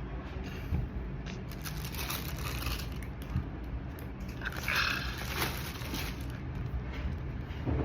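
Rustling, crinkling and scraping as a cardboard shoe box and its packaging paper are handled, in uneven bursts with a few small clicks, over a steady low hum.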